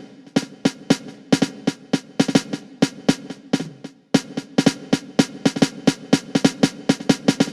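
Millenium MPS-150 electronic drum kit played on its fifth preset kit, the sampled drum sounds coming straight from the module. It is a run of sharp strikes with a short break about four seconds in, then a faster, even stream of hits.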